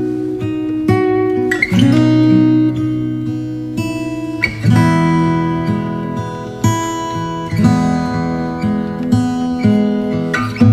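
Background music: acoustic guitar strummed and plucked chords.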